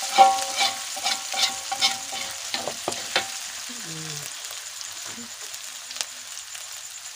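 Food sizzling in hot oil in a wok. A metal spatula scrapes and knocks against the wok several times in the first three seconds, then the frying sizzle goes on alone.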